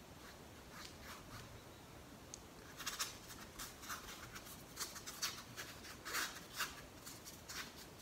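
Paintbrush bristles stroking and dabbing acrylic paint onto a stretched canvas: faint, short scratchy strokes, coming thicker and quicker from about three seconds in.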